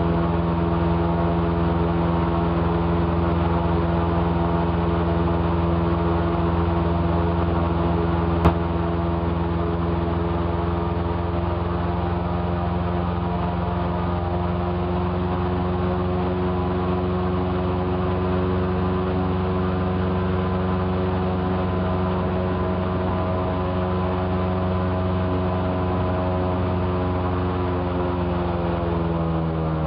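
Airboat engine and propeller running steadily at cruising speed, one even droning pitch. There is a single sharp click about eight seconds in, and the pitch falls near the end as the throttle comes back.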